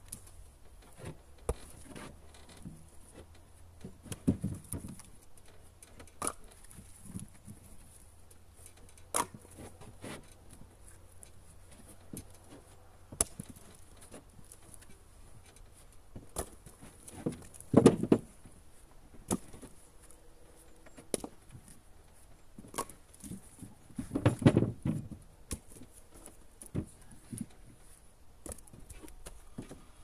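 Split birch firewood thrown by hand from a trailer onto a woodpile: irregular wooden knocks and clatters as the chunks land and tumble, louder clattering about four, eighteen and twenty-four seconds in.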